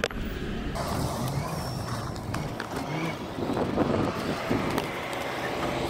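Steady low rumble of diesel trucks idling around a truck yard, with scattered light knocks and clicks over it.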